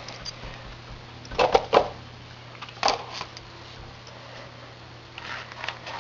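Short knocks and rustles, bunched about a second and a half in and again near three seconds, with fainter ones near the end, over a steady low hum.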